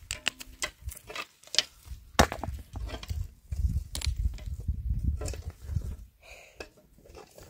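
Irregular sharp knocks and cracks of wood being handled and struck, with a low rumble in the middle.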